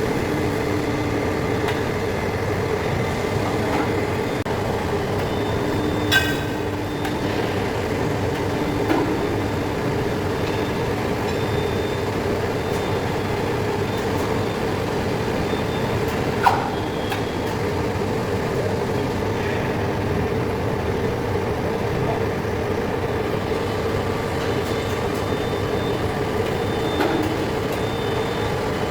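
Heavy-duty lathe running with a steady machine hum and a held mid-pitched tone, broken by a few short sharp clinks.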